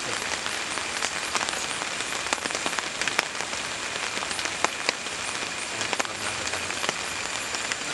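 Rain falling on a tarp shelter: a steady hiss with many sharp individual drops striking the sheet.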